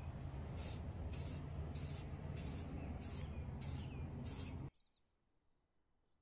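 Aerosol spray can of primer hissing in seven short bursts, about 0.6 s apart, over a steady low hum. The sound cuts off suddenly near the end.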